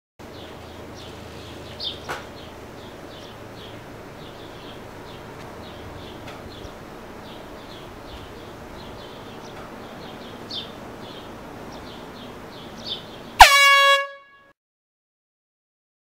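Handheld air horn sounding a single loud blast of about half a second near the end, its pitch dropping at the onset and then holding steady. Before it, only a faint outdoor background with short, high chirps.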